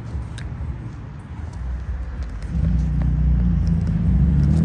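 A motor vehicle's engine running with a low steady hum, growing louder from about halfway in as it approaches.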